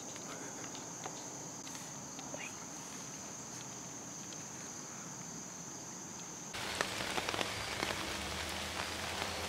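Insects trilling steadily in one high, unbroken tone over quiet woodland. About six and a half seconds in, this cuts off and gives way to rain pattering on leaves: an even hiss with many scattered drops.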